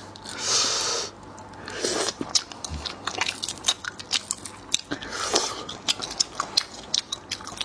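A person eating seafood close to the microphone: wet chewing and biting with many small crisp clicks and crunches, and two longer hissy mouth sounds, near the start and about five seconds in.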